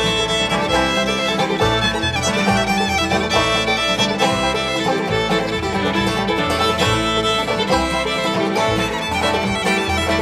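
A live bluegrass band playing an instrumental passage, with fiddle to the fore over banjo and guitar and a steady bass pulse.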